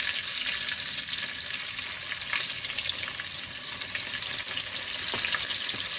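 Prawn spring rolls deep-frying in hot oil: a steady sizzle with fine crackling.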